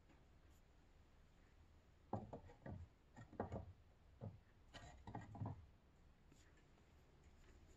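Faint handling noises of an orchid pot being moved on a wooden table: a short run of soft knocks and scrapes between about two and five and a half seconds in, with near silence around them.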